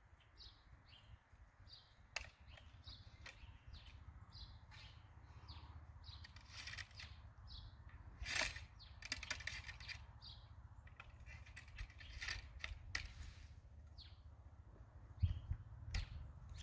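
Faint handling sounds of an India pattern flintlock musket being loaded: sharp metal clicks from the lock and pan cover, and a rattling scrape about midway as the steel ramrod goes down the barrel. Small birds chirp repeatedly throughout.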